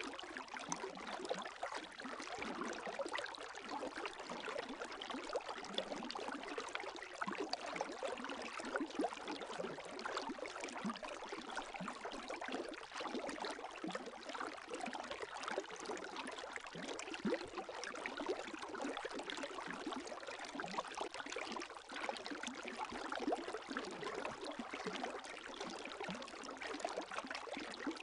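Gentle lake waves lapping: a steady, unbroken run of small splashes and gurgles.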